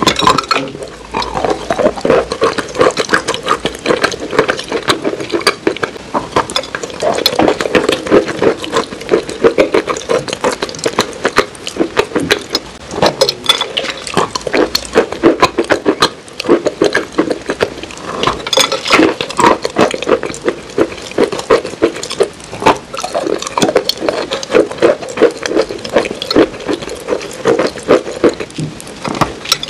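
Close-up chewing of crunchy, crumbly food: dense, continuous crackling crunches with mouth sounds.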